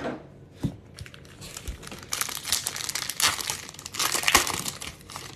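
Foil wrapper of a 2022 Bowman baseball card pack crinkling as it is handled and torn open, heaviest from about two seconds in until near the end.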